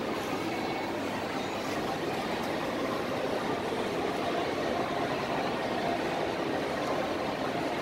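Steady background hubbub of a busy shopping mall: crowd noise and general din filling a large multi-storey atrium, with no single sound standing out.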